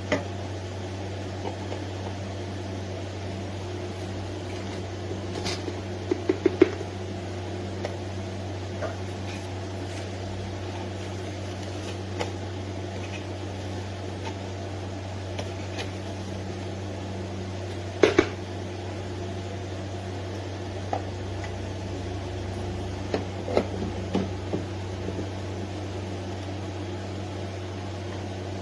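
Neretva 15-bar espresso machine running with a steady low mechanical hum, with a few short knocks and clinks on top, the sharpest about six seconds in and again around eighteen seconds.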